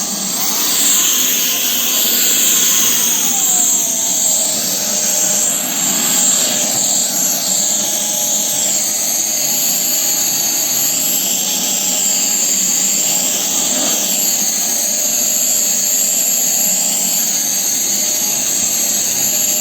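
Lefant M201 robot vacuum cleaner running: a steady rush of suction-fan noise with a high, slightly wavering whine on top, and a few tones that slide in pitch in the first few seconds.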